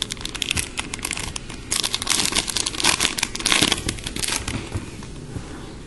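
Crinkling and crackling of a card pack's plastic wrapper as trading cards are handled: a rapid run of small crackles, thickest from about two to four seconds in.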